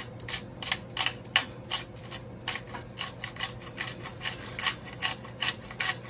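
Pepper grinder being twisted over the pot, giving an even run of sharp grinding clicks about three a second, over a faint steady hum.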